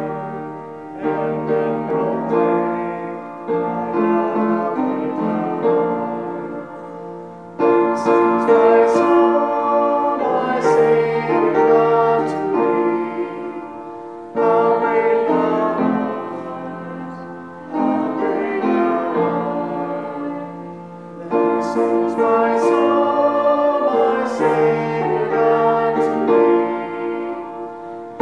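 Upright piano playing a slow piece, its phrases each starting with a sudden strong chord and fading away over several seconds.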